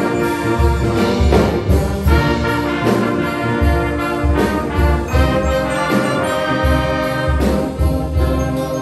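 High school concert wind band playing live: clarinets, saxophones and brass over a pulsing bass line, with jingle bells.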